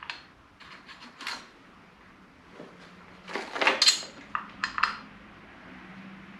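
Light clicks and clinks of motorcycle rally nav-tower parts being handled and knocked together while the bolt holes are lined up, with a louder burst of clattering about halfway through.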